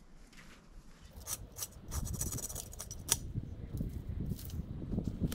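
Sharp cracks and crackling of dry wood and brush as a person stomps and tramps on a fallen tree in snow, with a low rumbling noise building from about two seconds in.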